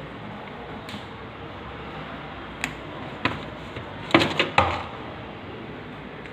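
Samsung top-load washing machine with a steady background hum, broken by several sharp knocks and clicks, three of them close together about four seconds in.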